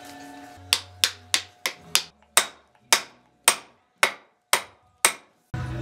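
A hammer driving a glued wooden wedge into the top of a new axe handle: eleven sharp knocks, quick at first, then slowing to about two a second.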